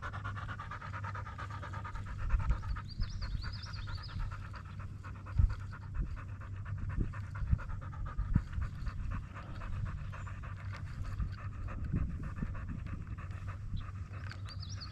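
Dog panting steadily, with a few soft low knocks.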